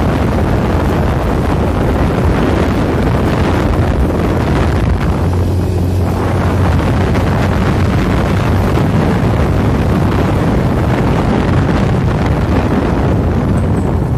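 Wind rushing over the microphone of a moving vehicle, over a steady low drone from its engine and tyres. The drone swells briefly about five seconds in.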